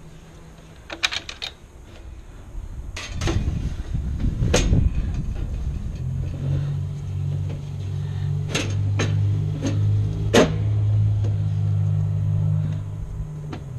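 Sharp metal clicks and clanks as the steel dead-front cover of a house breaker panel is fitted and fastened. Under them a low engine hum builds from about three seconds in, runs steadily, and stops near the end.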